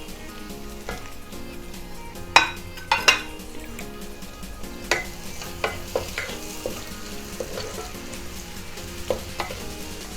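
A spoon stirring chopped tomatoes into soft fried onions in a heavy pan, knocking and scraping against the pan about a dozen times, louder twice early on, over a low sizzle.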